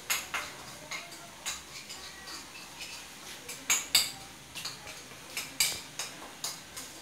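Light clinks and taps of kitchenware, a scattered series of short sharp strikes, about fifteen in all, with the loudest pair about four seconds in and another just after five and a half seconds.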